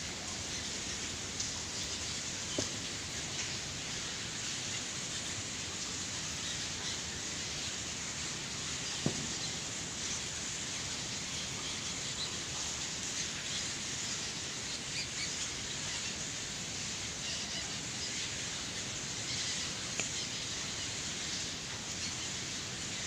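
Steady high hiss of night ambience with many faint, short, high chirps scattered through it, from bats flying about; two soft clicks stand out, the louder about nine seconds in.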